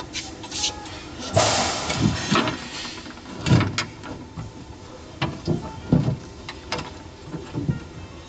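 A rubber sealing strip scrapes as it is drawn along the flange of a side panel. Then come a series of irregular knocks and thumps as the panels are handled and pressed together at the seam.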